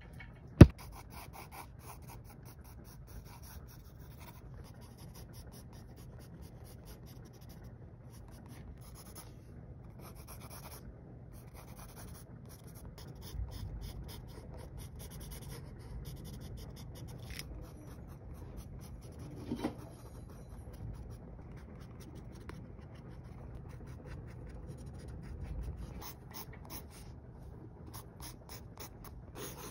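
Pencil scratching across textured drawing paper in short sketching strokes, starting and stopping unevenly. A single sharp, loud click comes about half a second in.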